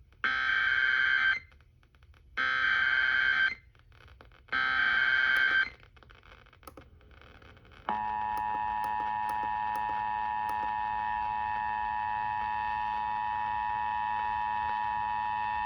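Emergency Alert System activation over FM radio announcing a Severe Thunderstorm Warning: three one-second bursts of SAME header data tones with pauses between, then, about eight seconds in, the steady two-tone EAS attention signal, heard through a tabletop radio's speaker.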